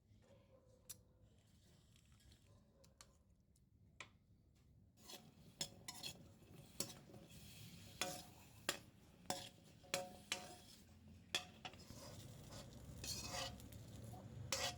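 Kitchen utensils clinking and knocking against cookware. A run of sharp clinks with a short ring comes roughly one every half second or so from about five seconds in, and gives way to a steadier scraping, stirring rustle near the end.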